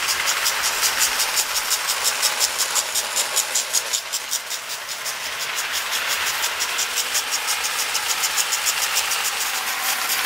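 Vintage Lionel standard gauge toy train, a steam-type locomotive pulling freight cars, running around a small oval of track. Its electric motor and gears run steadily with a rapid, even clicking of about six a second, a little quieter for a moment about four seconds in.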